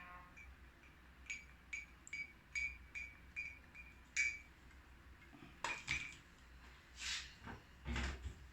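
Metal spoon clinking against the inside of a glass while stirring honey into lemon juice: light ringing ticks about three times a second for roughly three seconds, then a few duller knocks in the second half.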